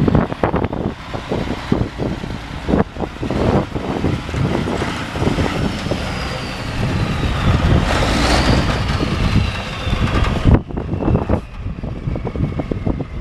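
Caterpillar C12 diesel engine of a semi truck running, with irregular knocks and clatter and a faint high whine that falls in pitch twice. The sound changes abruptly about ten and a half seconds in.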